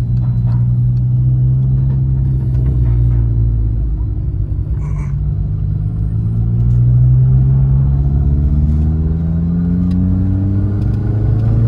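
Turbocharged 1.0 engine of a VW Gol G6, heard from inside the car, running at a steady low pitch after a turn. It then pulls under acceleration, its note rising steadily through the second half.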